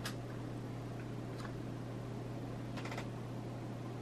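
A few faint clicks, with a short run of quick clicks about three seconds in, over a steady low hum.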